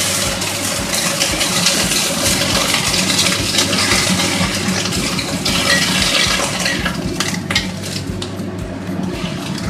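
Water sizzling and steaming in a hot steel wok, a loud hiss that surges again about halfway through. A metal spatula scrapes and clicks against the wok as the sliced water bamboo shoots are stirred.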